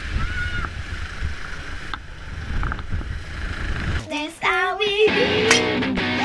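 Background music laid over the footage: a noisy, bass-heavy electronic track, then about four seconds in a different piece starts with a wavering melody over steady chords.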